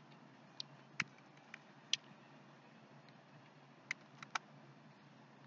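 Computer keyboard keys pressed one at a time, about seven short sharp clicks spaced irregularly, over a faint steady hum.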